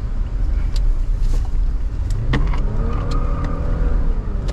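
Steady low rumble of a car's engine and road noise heard from inside the cabin while driving, with a few sharp clicks; about halfway a humming tone rises slightly and then holds steady.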